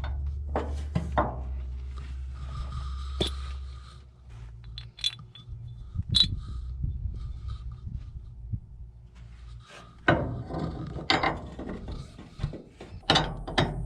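Hand tools working a bolt on a steel frame bracket: scattered metallic clicks and taps, then a quick run of ratchet wrench clicking near the end as a nut is turned off.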